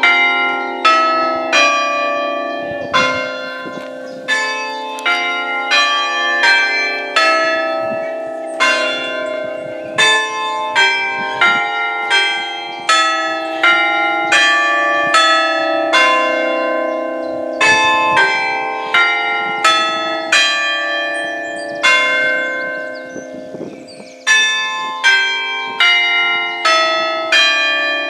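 Church bells chimed one after another with hammers on an Ellacombe apparatus, six bells sounding. The strokes come about one to two a second, each bell ringing on under the next, with a short break about three-quarters of the way through before the chiming resumes.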